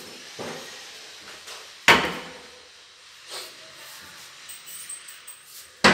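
Modular kitchen cabinet doors being shut: a sharp bang about two seconds in, a few lighter knocks, and another bang at the very end.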